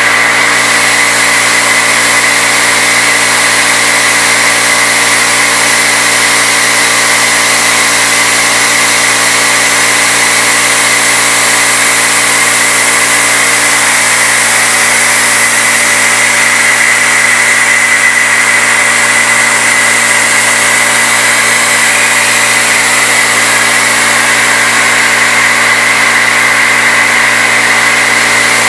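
CNC-retrofit Bridgeport knee mill with its spindle at 2200 RPM and a 3/8-inch end mill milling aluminum: a steady, loud cutting whine over the machine's running noise.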